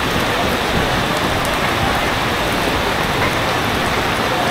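Heavy rain pouring down steadily, an even, unbroken rush of falling water.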